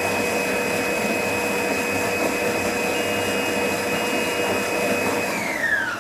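Froothie Thermo Cook Pro M 2.0 kitchen machine running its blade at speed 7, blending the lemon curd mixture with a steady high whine. Near the end the motor winds down and the whine falls in pitch.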